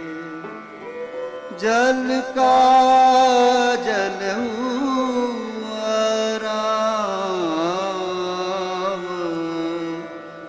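Sikh shabad kirtan: a voice sings a long, wavering, ornamented melodic line without clear words over a steady harmonium drone. The voice comes in about a second and a half in and dips in pitch near the middle.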